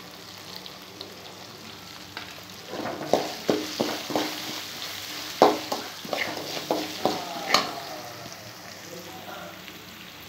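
Peanut and dal tempering sizzling in oil in an aluminium kadai, with a metal slotted spoon stirring and clinking against the pan in a run of sharp knocks through the middle, some of them ringing on briefly.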